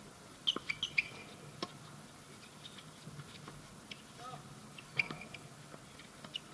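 Tennis ball struck by rackets during a doubles rally: a cluster of sharp pops within the first second, one more soon after, the loudest about five seconds in, and another near the end. Short high chirps come in between.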